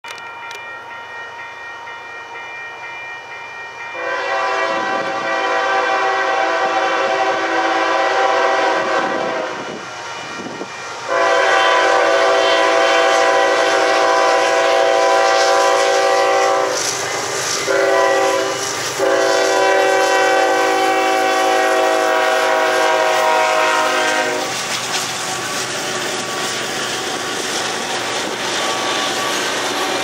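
Union Pacific GE C45ACCTE (ES44AC) locomotive's air horn sounding for a grade crossing as the train approaches: faint at first, then several loud long blasts with short breaks, the last ending about 24 seconds in. After that, the double-stack intermodal cars rumble and clatter past on the rails.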